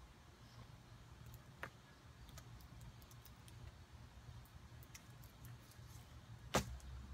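Quiet background with a steady low hum, a few faint clicks, and one sharp click near the end.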